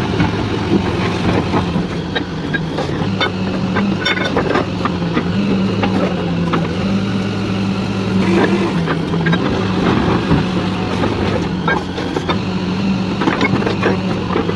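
Engine of a truck-mounted borewell drilling rig running steadily, its pitch shifting slightly, with scattered clicks and knocks.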